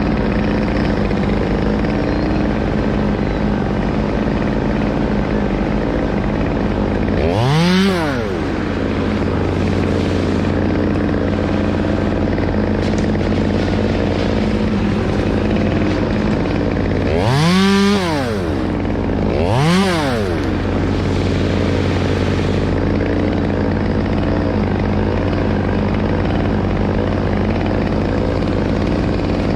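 Chainsaw engine running steadily at idle, revved up and back down three brief times: once about a quarter of the way in, then twice close together just past the middle.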